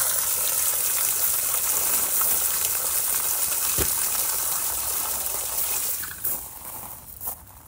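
Water spraying and gushing from the open, broken ends of a garden drip-irrigation line into soil, a steady hiss that dies down about six seconds in.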